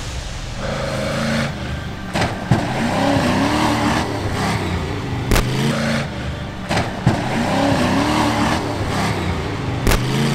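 Off-road race truck engine revving hard, its pitch rising and falling over and over, with several sharp bangs.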